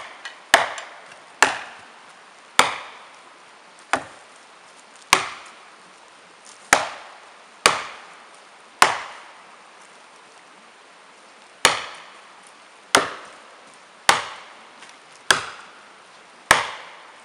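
An axe striking felling wedges in the back cut of a large pine, about once a second with a short pause partway through. Each blow is a sharp crack with a brief ring. The wedges are being driven to lift and tip the tree over its hinge.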